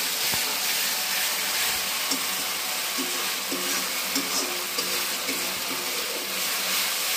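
Sliced onions and ground masala sizzling in hot oil in a steel kadhai while being stirred with a spatula: a steady frying hiss.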